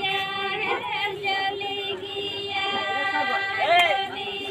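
Music with a long, steady held note and singing voices, the held note dropping out briefly about two seconds in.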